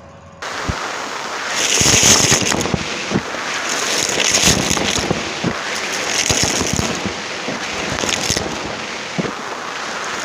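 Close-miked Numatic James vacuum cleaner sucking up crunchy debris, grit crackling and rattling as it is pulled in. The crackle cuts in suddenly about half a second in and swells louder several times.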